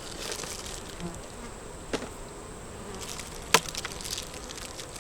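A swarm of honey bees buzzing steadily around an open hive. Two sharp clicks cut through, about two seconds in and again a second and a half later, the second louder.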